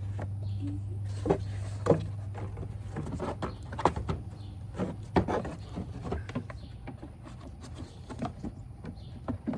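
Scattered light knocks, clicks and rustles of a pleated air filter being handled and seated in a plastic engine airbox, over a steady low hum.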